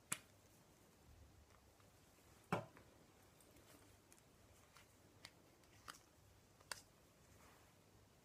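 Near silence broken by about five faint clicks and taps, the loudest about two and a half seconds in: small plastic mascara tubes, caps and wands being handled.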